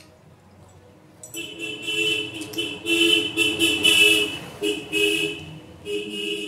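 A vehicle horn honking in repeated blasts, some short and some longer, starting about a second in. It is a steady two-note blare.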